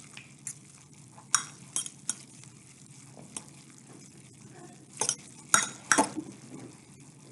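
A utensil stirring instant ramen noodles in a bowl, knocking against the bowl in scattered clinks, the loudest a few close together about five to six seconds in.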